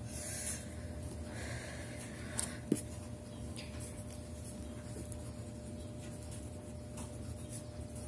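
Ballpoint pen writing on notebook paper: faint scratching strokes and small ticks, with one sharp click about two and a half seconds in, over a faint steady hum.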